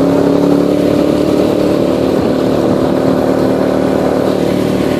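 ATV engine running steadily as the quad cruises along, its pitch holding level.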